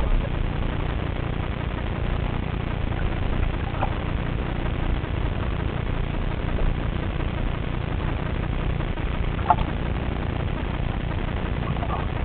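Steady low rumbling water noise, picked up underwater through a camera's waterproof housing, with a few faint clicks.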